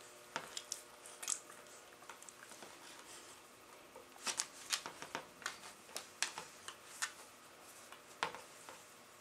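Dogs play-fighting: scattered sharp clicks and snaps from teeth and claws, with a busy flurry of them from about four seconds in and a last loud snap near the end.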